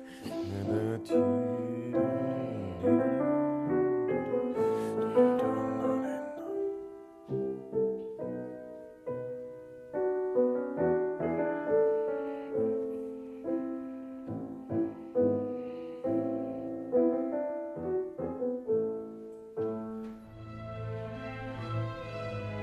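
Piano playing a classical passage: a stream of struck notes and chords, each fading after it is hit. Near the end the sound becomes fuller and steadier.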